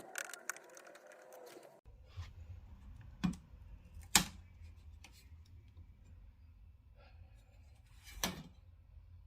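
Scattered clicks and taps of plastic and metal TV parts being handled during disassembly, with three sharper knocks about three, four and eight seconds in, over a faint low hum.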